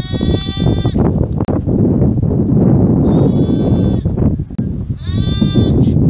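A lamb bleating three times, each bleat about a second long, over a steady low rumble.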